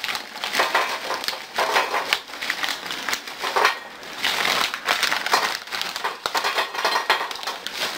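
Plastic snack bags crinkling as puffed snacks are shaken out of them, the puffs clattering onto a metal pizza pan in many small clicks.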